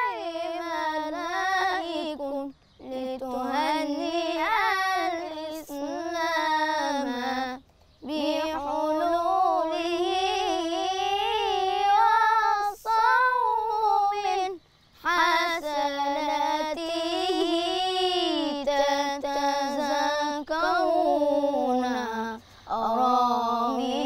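A ten-year-old boy's solo voice chanting Islamic devotional inshad without accompaniment. He sings long phrases with many turns and wavers in pitch, broken by a few brief pauses for breath.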